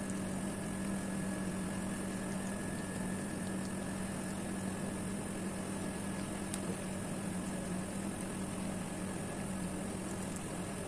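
A steady machine hum: one constant low tone over an even hiss, unchanging throughout.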